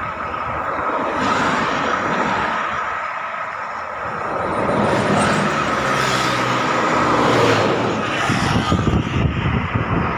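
Roadside traffic noise, with a motor vehicle passing close by: its engine grows louder from about halfway through and fades a few seconds later.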